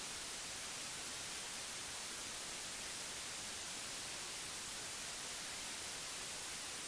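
Steady hiss of static, strongest in the treble and unchanging throughout, with nothing else over it.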